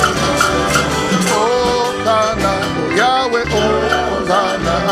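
Upbeat gospel praise music with a steady beat and a moving bass line, between sung phrases.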